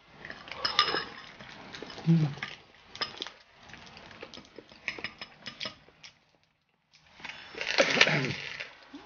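Close-up eating sounds: many small clicks and crackles of chewing and of balut eggshells being peeled, then a louder crunching bite into fried breaded chicken feet near the end.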